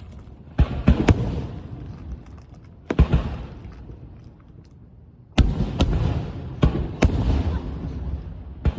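Fireworks exploding: about eight sharp bangs at uneven intervals, some in quick pairs, each trailing off in a long echoing tail.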